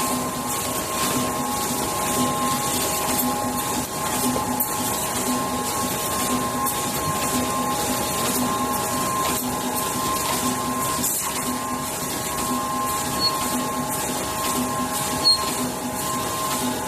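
Automatic multi-colour tube UV screen printing machine and its conveyor running: a steady machine hum with a few high tones and a low pulse that repeats roughly every two-thirds of a second, with occasional light clicks.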